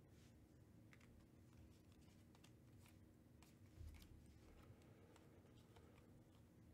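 Near silence, with faint scattered ticks and rustles of trading cards being slid off a stack in hand, over a faint steady hum. There is a soft low thump about four seconds in.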